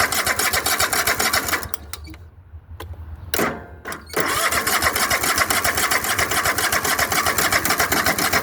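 Electric starter cranking a Kohler Courage 25 V-twin lawn tractor engine in a fast, even churn without it catching. The cranking stops about two seconds in and starts again after a short pause. The engine is being tried with a newly fitted fuel pump because it was not getting fuel.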